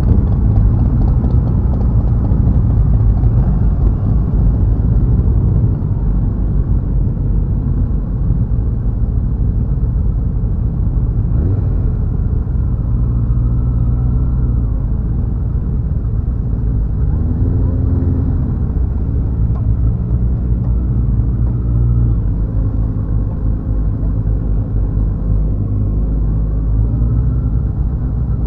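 Motorcycle engines running on the move under a heavy, continuous low rumble, with engine notes coming and going; near the end one engine rises in pitch as it accelerates.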